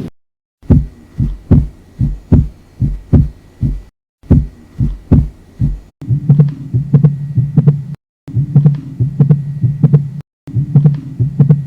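Heart sounds heard through a stethoscope, in several short recordings one after another: regular paired beats (lub-dub). The later recordings carry a steady hum between the beats, a heart murmur.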